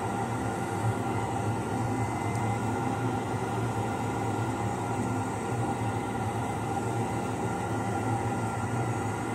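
Steady machine drone, a continuous running motor with several held tones over a dense noise bed, unchanging in level.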